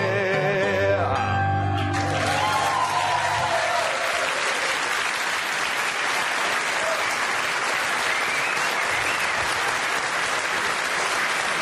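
A male singer's held last note and grand piano chords end a song about two seconds in, then a large audience applauding steadily.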